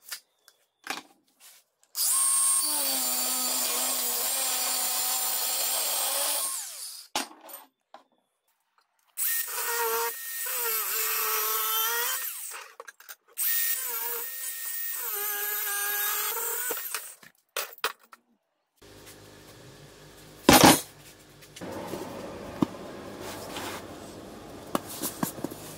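Angle grinder with a cut-off disc cutting through steel threaded rod, in three runs of a few seconds each. The motor whine sags and recovers as the disc bites. Near the end there is one sharp knock and a few light taps.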